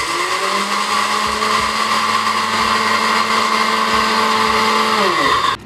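Electric kitchen grinder motor running steadily while grinding roasted coffee beans, then switched off about five seconds in, its pitch falling as it winds down.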